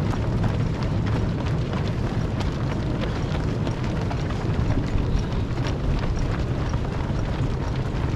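Footsteps of many marathon runners striking the road, a dense patter of irregular shoe slaps, over a steady low rumble.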